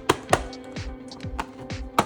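Background electronic music with a steady kick-drum beat and sharp percussive clicks.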